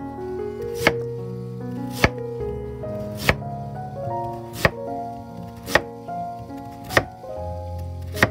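Kitchen knife slicing through a Korean radish and striking a wooden cutting board: seven crisp chops, a little over a second apart. Soft background music plays underneath.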